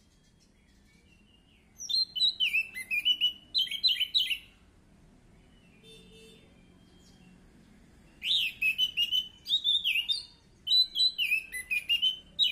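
Orange-headed thrush (anis merah) singing in three bursts of rapid, varied, high warbled phrases: one about two seconds in, then two more close together from about eight seconds in until the end.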